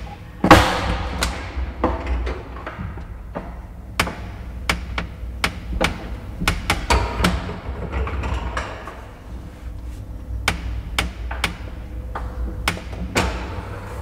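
Old passenger lift car travelling in its shaft: a steady low rumble, a loud bang about half a second in, then irregular sharp clicks and knocks, often a few each second.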